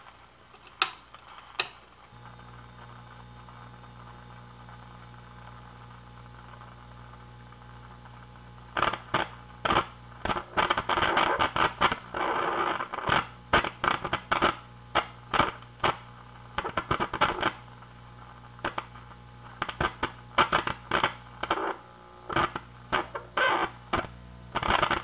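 RCA Victor 1-X-51 tube radio's speaker: after two clicks it settles into a steady low hum, then from about nine seconds in the sound comes in irregular crackling bursts that cut in and out. This is heard while the tight slug of the first IF transformer is being turned; the stuck slug broke a lead inside the can, which the repairer takes for the reason the radio died.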